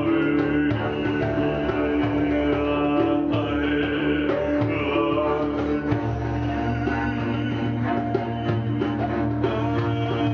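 Acoustic ethno-jam music: plucked double bass over a sustained low drone, with hand-drum strokes and a voice singing through the middle.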